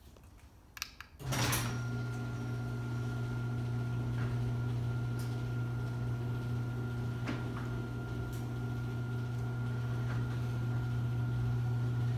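LiftMaster 8365 garage door opener raising a Wayne-Dalton 8500 sectional garage door: a few clicks, then about a second in the motor starts with a steady hum and a thin steady whine, with occasional light ticks as the door travels up.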